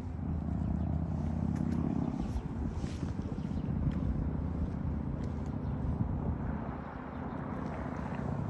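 Low, steady rumble of a motor vehicle on the street, with a rougher swell about six seconds in as it passes.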